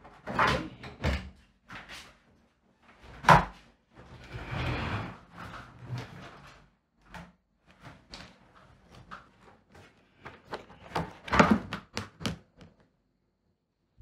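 Handling noises of office furniture and papers: a wooden cabinet drawer shut with a loud thunk about three seconds in, then rustling and small knocks and taps as papers and a folder are handled at a desk, with a louder cluster of knocks near the end.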